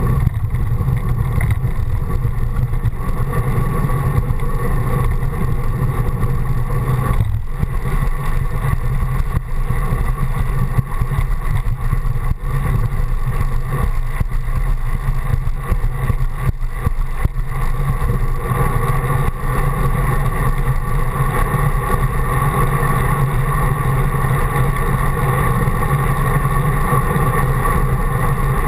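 Steady low rumble of wind and road vibration on a handlebar-mounted camera while cycling along a paved path, dipping briefly about seven seconds in.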